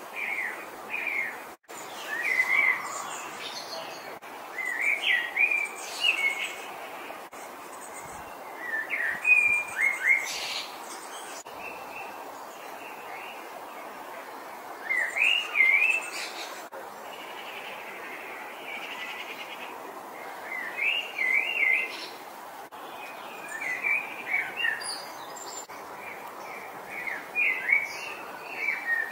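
Songbirds singing: short bursts of quick chirping phrases come every few seconds, over a steady background noise.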